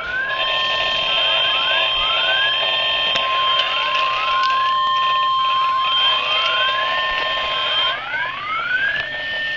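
Electronic alarm: rising whoop tones repeating about once a second over a steady high tone, which cuts off about eight seconds in.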